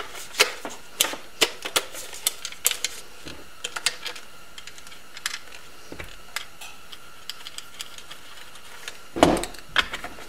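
Hard plastic parts of a motorcycle instrument cluster clicking and tapping as they are handled and fitted by hand. Quick clicks come close together for the first few seconds, then thin out, with a louder knock and rustle near the end.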